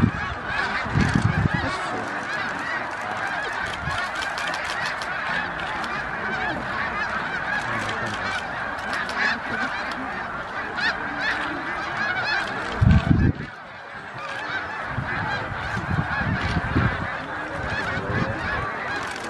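A large flock of snow geese calling: a dense, unbroken chorus of honking. A few low rumbles break in, the loudest about 13 seconds in.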